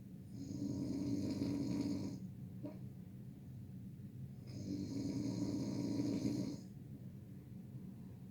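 A person snoring loud: two long snores about four seconds apart, each lasting about two seconds, with quieter breathing in between.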